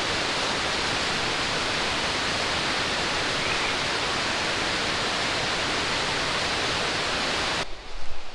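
Steady roar of rushing water, an even noise that stays at one level and cuts off suddenly near the end.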